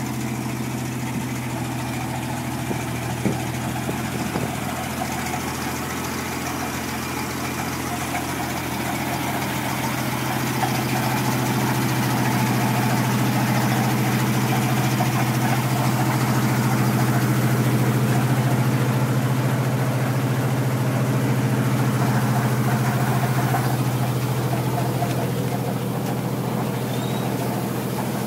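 The 1964 American LaFrance fire truck's 600 cubic inch Continental six-cylinder gasoline engine idling at an even pitch. It grows louder through the middle and eases off again toward the end.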